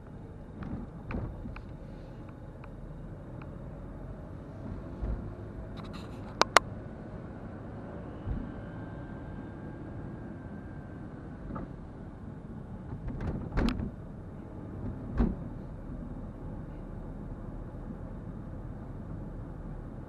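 Car driving, with a steady low road and engine rumble. A few sharp clicks and knocks break through it, the sharpest about six and a half seconds in and another cluster around thirteen to fifteen seconds in.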